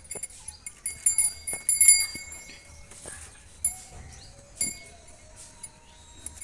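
Small bell on a young calf's collar jingling in short bursts as the calf jumps and shifts about, with a few light knocks.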